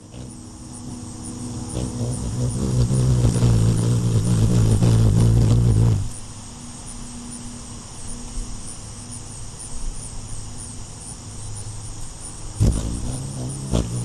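Female ruby-throated hummingbird's wings humming as it hovers at close range, a low buzz that swells over the first six seconds and stops abruptly, then starts again near the end.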